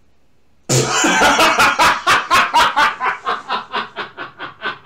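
A person laughing in a long string of rapid 'ha-ha' bursts that starts suddenly about a second in, loud at first, then gradually slows and fades.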